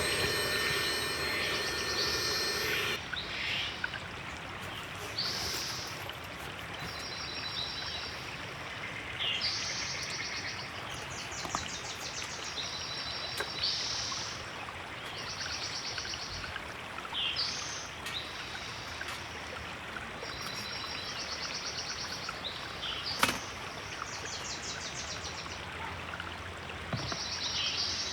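Steady rush of a flowing river with a songbird singing short, fast trills over and over, about one phrase every second or two. There is a single sharp click about two-thirds of the way through.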